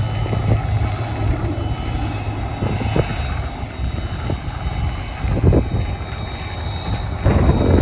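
Jet airliner engines running, a steady low rumble with a faint high whine, with gusts knocking on the microphone. About seven seconds in, wind noise on the microphone gets suddenly louder.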